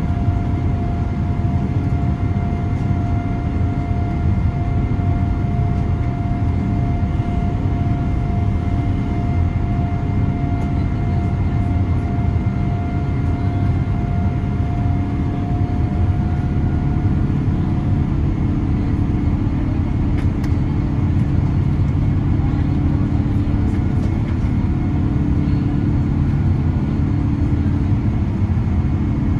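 Steady engine and airflow noise heard inside the cabin of a Boeing 787-9 airliner, with a faint steady hum that fades out about halfway through.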